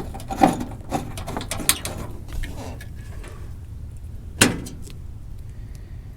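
Hand work on a truck's sheet-metal filler panel and its bolts: a series of light metallic clicks and knocks, then one sharp knock about four and a half seconds in, over a steady low hum.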